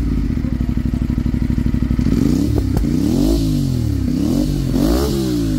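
Aprilia RS 457's parallel-twin engine idling just after starting, then revved up and down a few times in the second half. It is breathing through an aftermarket carbon slip-on silencer held onto the de-cat link pipe by hand.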